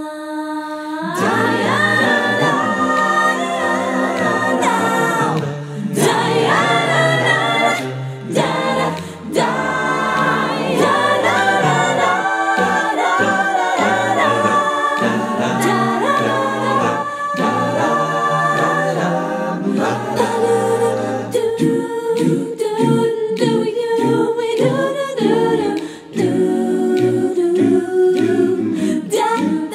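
Eight-part mixed a cappella vocal jazz ensemble singing close harmony on scat syllables ("dah", "dye yah dah"). About two-thirds through, the voices change to short repeated "doop" notes.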